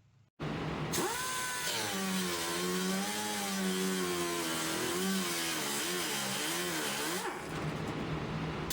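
Power cutting tool cutting out the rusted sheet-steel floor pan: a steady whine with a harsh hiss, its pitch dipping and recovering as the tool bites into the metal. The cutting hiss eases briefly near the end while the motor keeps running.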